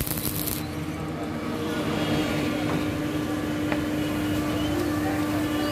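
A steady mechanical hum over a rough background noise, with a few faint clicks; a high hiss cuts off under a second in.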